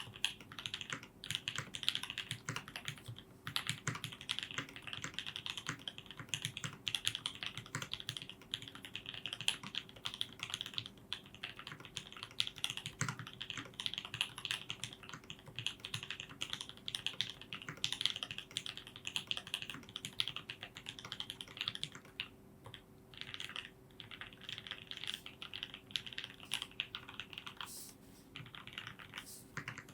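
Continuous typing on a Mode Eighty mechanical keyboard with lubed Banana Split linear switches, an aluminium plate and Zeal stabilisers: a rapid, fairly even stream of key clacks that thins out briefly a little past two-thirds through.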